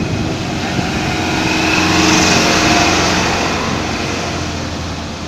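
A loaded goods truck's engine running as the truck drives through floodwater flowing over the road, its wheels churning up spray. The sound grows to its loudest about two to three seconds in as the truck passes close by, then fades.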